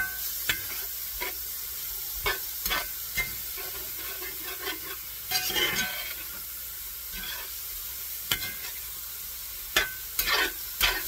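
Diced beef sizzling in a frying pan with lemonade and lime juice just added, while a utensil stirs it, scraping and knocking against the pan at irregular moments over a steady hiss.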